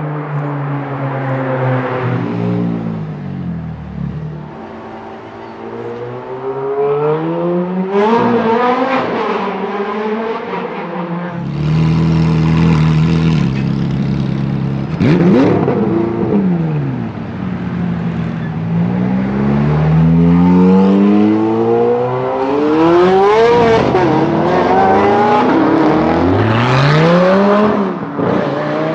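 Ferrari 430 Scuderia's V8 with a Novitec Rosso exhaust, revving hard and accelerating in a series of passes: pitch climbs through the gears and drops on each lift. Sharp throttle blips come about halfway and again near the end.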